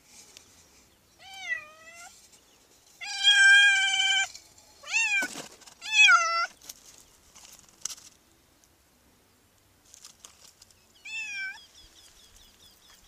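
A tortoiseshell cat meowing about five times, one meow drawn out for about a second, with pauses between. These are the distress calls of a cat with its head stuck in a rusty tin can as it is worked free.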